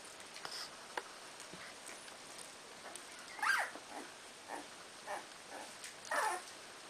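Cardigan Welsh Corgi puppies, about 18 days old, making short squeaks and whimpers. A louder squeal falling in pitch comes about halfway in, then several softer squeaks, and another falling squeal near the end.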